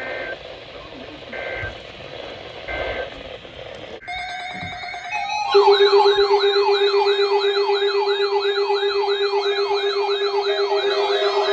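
Three short squawking data bursts of an Emergency Alert System end-of-message code. After a break, a loud electronic siren starts about five seconds in: a fast up-and-down warble, about two to three sweeps a second, over a steady low tone.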